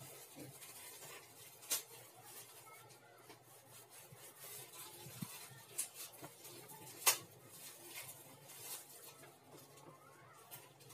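Hands rolling bread dough back and forth on a floured wooden table: faint rubbing and scuffing, with a few light sharp ticks, the sharpest about seven seconds in.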